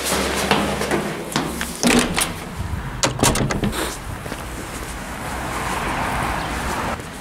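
Footsteps going down stone stairs and out through a door, with several sharp knocks and thuds in the first few seconds, then a steady outdoor hiss while walking on pavement.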